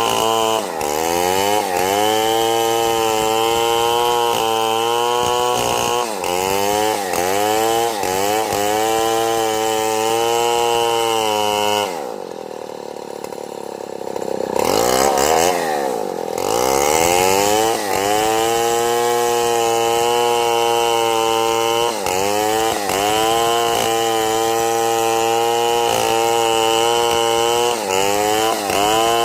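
Two-stroke chainsaw running at high revs while cutting wood, its pitch dipping under load again and again and recovering. About halfway through it drops to a lower, quieter run for a couple of seconds, then revs back up.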